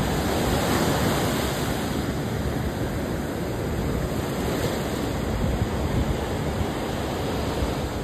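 Pacific Ocean surf breaking and washing up the beach: a steady rushing roar of waves.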